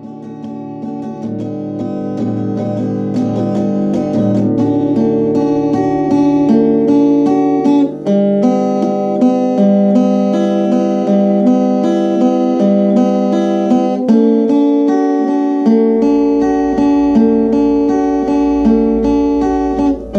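Background music: acoustic guitar strumming chords in a steady rhythm, fading in at the start.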